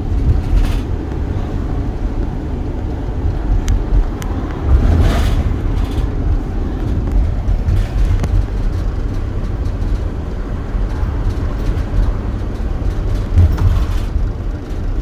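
Steady low rumble of road noise from a moving vehicle, with a louder swell about five seconds in.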